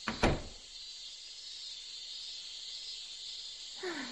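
Steady high-pitched insect chorus, crickets or similar. A brief dull burst comes just after the start, and a short falling vocal sound, like a soft sigh, comes near the end.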